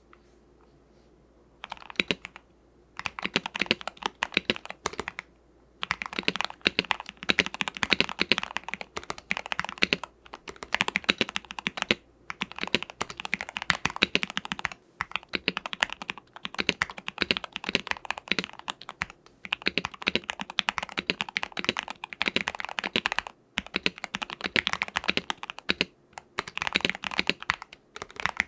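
Typing on an Ikki 68 Aurora mechanical keyboard with lubed Gateron Hippo switches, an aluminium plate and a PE foam mod. Fast runs of keystrokes come in bursts of a few seconds with short pauses between them, starting a couple of seconds in.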